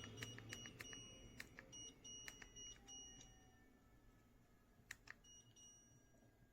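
Electronic beeps from a Shark TurboBlade tower fan's control panel: high steady tones in three short spells, with quick ticks between them. Faint fan airflow hiss dies away in the first seconds.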